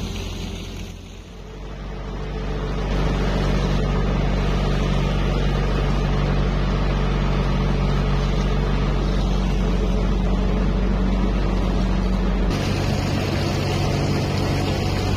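River tour boat's engine running steadily under way, a low even hum over a wash of water and wind noise. It dips briefly about a second in and changes character abruptly near the end.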